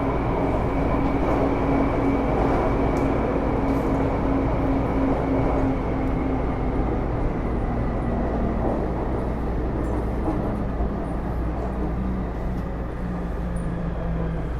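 Taipei Metro Series C301 train running, heard inside the car: rumble of wheels and running gear, with the Bombardier IGBT-VVVF traction drive's whine. A high whine holds steady while the low motor tones step down in pitch and the sound eases slightly, as the train slows.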